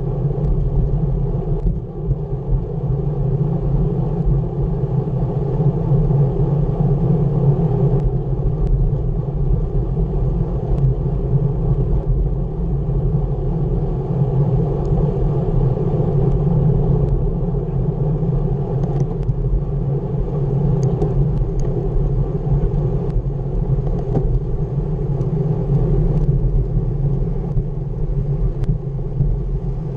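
Steady wind rumble over a bike-mounted camera's microphone and road-bike tyres rolling on asphalt at about 22 mph, with a few faint clicks.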